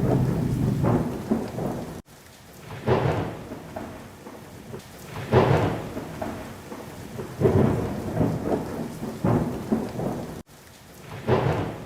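Storm sound effect: rain with rumbles of thunder swelling up about every two seconds. It cuts out abruptly twice, where the effect is looped.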